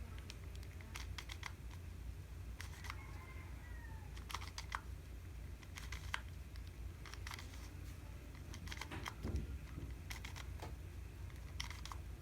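Plastic clicks of a 2x2 Rubik's cube as its faces are turned through an algorithm, coming in irregular flurries over a low steady hum.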